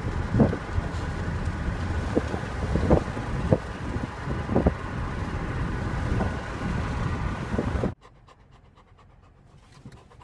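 Steady wind and road noise of a moving car with a rear window open, with short puffs of air every half second to a second. About eight seconds in it cuts off suddenly to the much quieter inside of a car with a few faint clicks.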